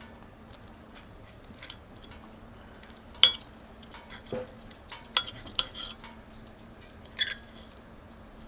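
Cutlery and dishes clinking: several sharp, short clinks with a brief ring, the loudest about a third of the way in, among lighter ticks.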